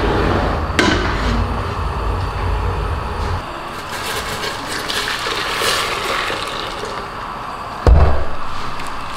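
Hot water poured from an electric kettle into a stainless steel pot, splashing for about three seconds midway. It is preceded by a low rumble and followed near the end by a single sharp knock, the loudest sound.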